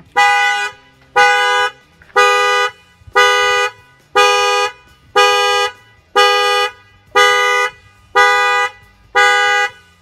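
2015 Nissan Altima's factory alarm sounding through the car horn: about ten loud honks, one a second, each about half a second long. The alarm was set off by a jolt at the wheel, picked up by an add-on shock sensor.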